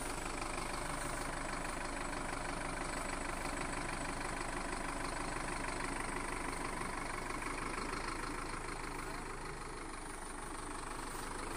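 Sonalika Tiger DI 65 CRDI tractor's four-cylinder common-rail diesel engine running steadily, dipping slightly about ten seconds in.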